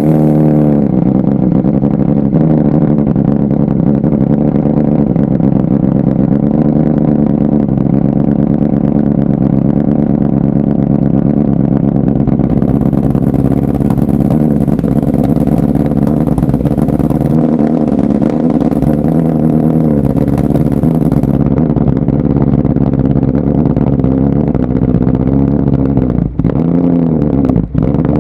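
BMW M1000RR's inline-four engine running through Akrapovič titanium headers and an Austin Racing GP1R slip-on muffler, idling steadily just after start-up. Near the end there are a few short dips and rises in revs.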